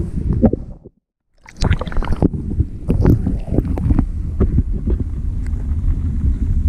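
Water heard through a submerged camera beside a kayak: a muffled, dense low rumble of water moving around the housing, with scattered sharp knocks and clicks. The sound drops out briefly about a second in, then resumes.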